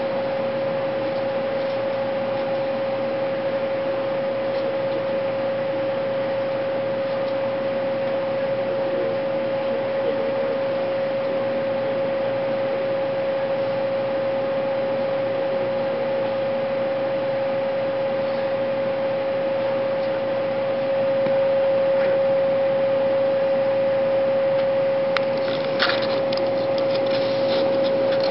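Cabin running noise inside an N700 series Shinkansen car: a steady hum with one even tone over a hiss, as the train pulls into a station. It gets a little louder about two thirds of the way in, and near the end there are a few sharp clicks and rustles.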